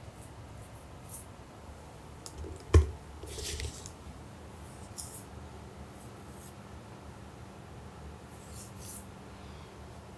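Soft handling noises as a tortoiseshell cat climbs onto a seated person's lap and is stroked: a single sharp thump about three seconds in, then several short scratchy rustles of fur and clothing.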